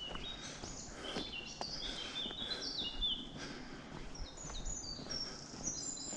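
Songbirds singing: runs of short, high chirping notes that step in pitch, one run in the first half and another near the end.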